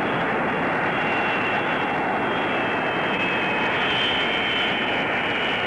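Military jet aircraft engine running with a steady roar and a high whine that rises a little about four seconds in, as aircraft arrive at the air base.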